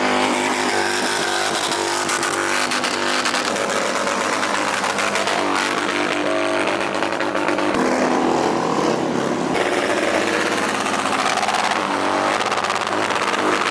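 Car engine held at high revs during a burnout, its pitch rising and falling, over the steady hiss and crackle of spinning tyres.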